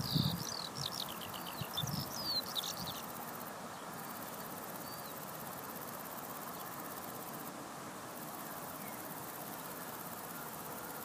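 Eurasian skylark singing a rapid run of short, high chirps, with a few low thumps under the first two seconds. The song stops about three seconds in, leaving a steady background hiss.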